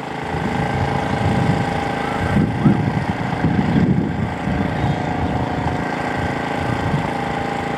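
A steady engine-like hum, with an uneven low rumble swelling between about two and five seconds in.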